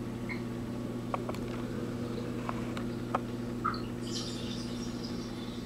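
Steady hum of an aquarium filter pump, with a few sharp clicks and taps as turtles' shells and claws knock against the rocks, and a short stretch of faint high squeaking about four seconds in.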